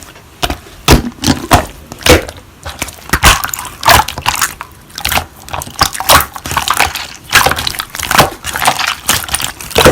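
Slime being squeezed and pressed by hand, with irregular crackling clicks and pops.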